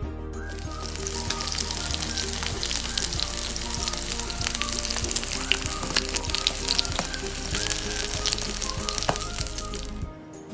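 Mutton chops sizzling as they fry on a hot iron tawa, a steady hiss full of frequent small pops and spatters. The meat was steamed tender beforehand and is now being browned in the fat. The sizzling stops shortly before the end, leaving only background music.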